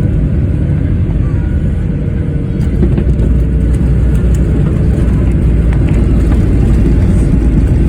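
Jet airliner landing: a loud, steady low rumble that swells slightly about three seconds in.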